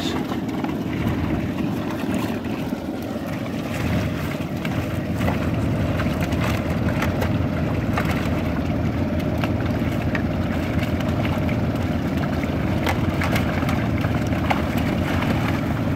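Steady low mechanical running noise from a fish-stocking truck, with a few light knocks of handling on its metal tank.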